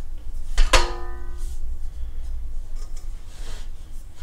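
A steel leg of a Chicago Electric welding table knocked once a little under a second in, ringing with a clear metallic tone that dies away within about a second.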